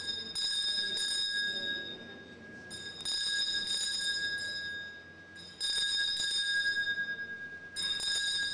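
Altar bells rung at the elevation of the consecrated host: a small hand-held set of bells shaken in four bursts of about two seconds each, ringing at several steady pitches.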